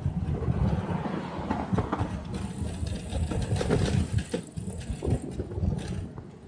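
Wind buffeting the microphone of a 360 camera carried on a moving bicycle: an uneven low rumble, with scattered clicks and rattles from the bike over the road.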